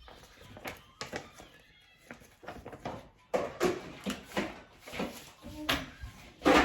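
Cardboard box and packaging being handled and opened: scraping, rustling and a series of light knocks and clicks, busier from about halfway through.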